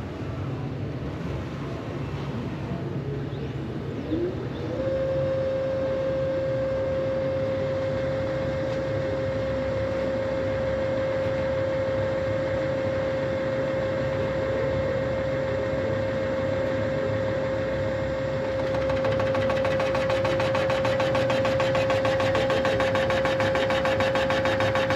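CNC line-boring machine in an engine shop. Its spindle spins up with a rising whine about four seconds in, then runs with a steady high whine over a low machine hum. About nineteen seconds in, a louder, rougher, finely pulsing noise joins as it works the block's main bearing line.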